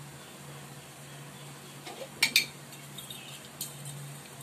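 A metal spoon clinking against a dish or container, two sharp clinks close together about halfway through and a lighter tick a second later, over a faint low steady hum.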